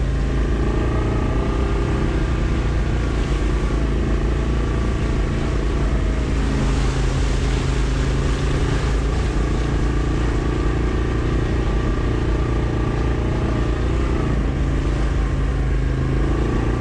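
Yamaha Kodiak ATV's single-cylinder engine running steadily while riding a muddy trail, with a rush of hiss about halfway through as it rolls through a puddle.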